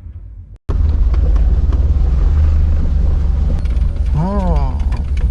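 Loud, steady low rumble of a vehicle or motor running. About four seconds in, a short voice-like sound rises and falls in pitch.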